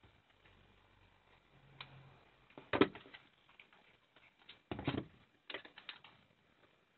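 Scattered clicks and clatter of small metal hardware and hand tools being handled, with a louder knock about three seconds in and another near five seconds, then a quick run of small clicks.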